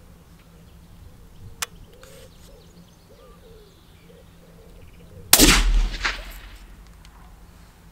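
A suppressed .308 Winchester rifle firing a single shot about five seconds in: one loud, sharp report that rings out, followed under a second later by a second, weaker crack. A single sharp click comes about a second and a half in.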